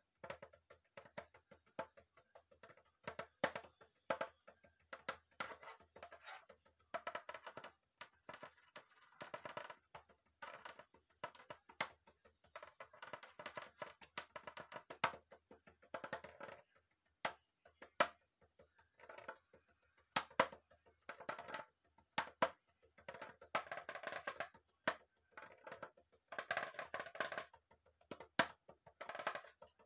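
Homemade percussion instrument, a round pink hollow body, struck with a stick. The strikes have a hollow ringing tone and come in an uneven rhythm, broken by clusters of rapid taps.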